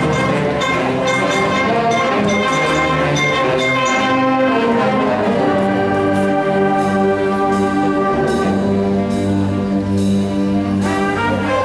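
A school concert band of woodwinds and brass playing slow, sustained chords, moving to a new chord about five seconds in.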